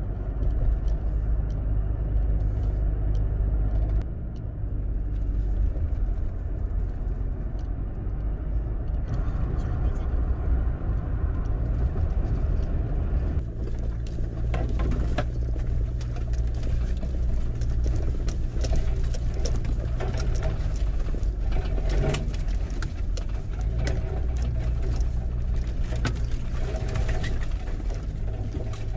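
Steady low rumble of a vehicle driving.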